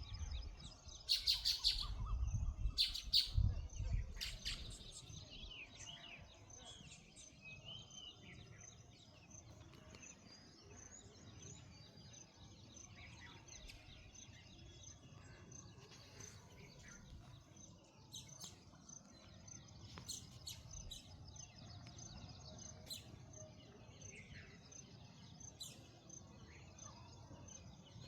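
Small birds chirping, with many short repeated chirps and quick pitch sweeps, louder and closer in the first few seconds, then continuing more softly.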